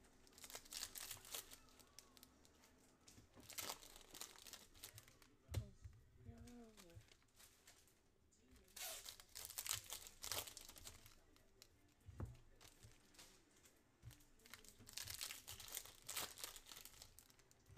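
Foil wrapper of a 2023 Certified NFL trading-card pack being torn open and crinkled by hand. It comes as faint, short bursts of rustling with quiet pauses between them.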